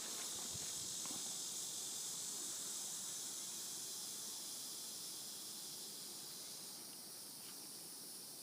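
Steady high-pitched droning hiss of insects, fading slightly towards the end, with a couple of faint knocks about a second in.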